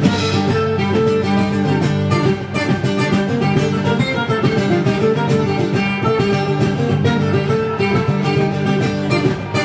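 Live instrumental music from a quartet of mandolin, acoustic guitar, bass guitar and drums, playing together with a steady beat.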